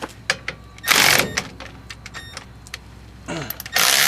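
Hand tools on the brake caliper bolts: scattered clicks and metal clinks of a socket wrench, with a short scraping burst about a second in. A loud steady noise starts near the end.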